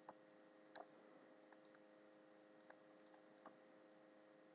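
Faint, scattered clicks of a computer mouse and keyboard in use, about seven over a few seconds, over a faint steady hum.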